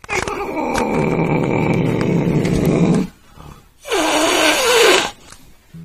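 Angry domestic cat growling, a long low rough growl of about three seconds, then after a short pause a wavering yowl. These are a cat's warning sounds: it is angry and wants to be left alone.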